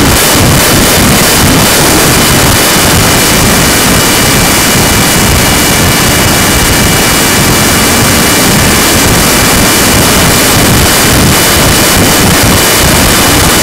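RC plane's motor and propeller running at a constant speed: a steady high whine over a loud, unbroken rush of wind on the microphone.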